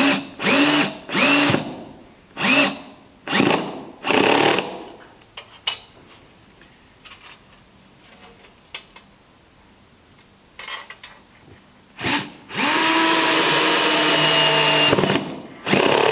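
Cordless drill/driver driving No. 12 wood screws through a wooden boat plank into the frame on a low torque setting: several short trigger pulses, each spinning up in pitch, over the first four seconds or so, then a pause with light handling clicks. About twelve seconds in, the drill runs steadily for about three seconds, followed by one more short burst near the end.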